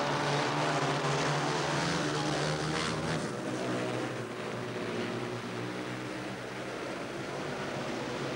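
Several speedway motorcycles racing round the track, their 500cc single-cylinder methanol-fuelled engines blending into one steady drone that eases slightly about four seconds in.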